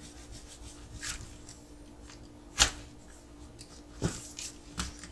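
Handling sounds of an RC car battery being slid into a plastic chassis: light rubbing and scattered plastic clicks, the sharpest about two and a half seconds in. A faint steady hum runs underneath.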